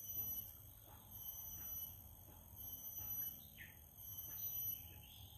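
Insects shrilling in the surrounding forest: thin, steady high-pitched tones that break off and start again, with a short bird chirp about three and a half seconds in.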